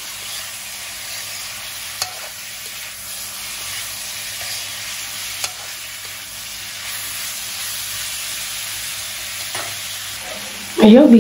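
Pork belly, long beans and onion sizzling steadily in hot oil as they are stir-fried, with a metal spatula giving two sharp clicks against the pan.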